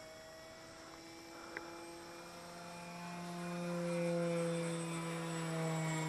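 Engine of a radio-controlled model P-51 running steadily in flight, a single buzzing tone that grows louder about two seconds in as the plane comes closer, then holds while its pitch slides slowly down.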